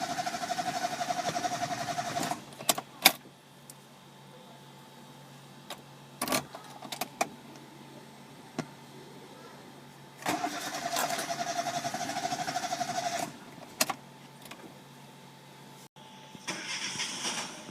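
Chevrolet Spark engine being cranked by the starter in two bursts of a few seconds each, turning over rhythmically but never firing: a crank-no-start caused by a failed camshaft position sensor (code P0342). Sharp clicks sound between the two attempts.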